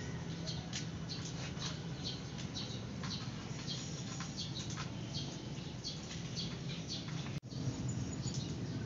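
Newborn kittens squeaking: many short, high-pitched squeaks in quick, irregular succession over a low steady hum.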